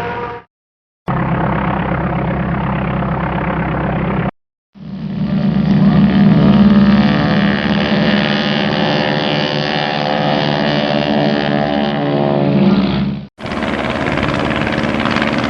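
A run of aircraft sound-effect clips separated by brief silences. The longest is a steady aircraft engine drone lasting about eight seconds, and a brighter engine sound follows near the end.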